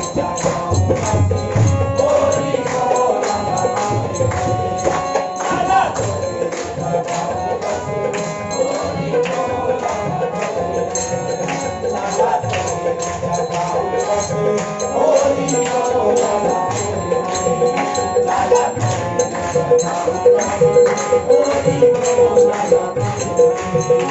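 Devotional kirtan: men's voices singing a bhajan with a harmonium, over a steady quick beat of hand percussion.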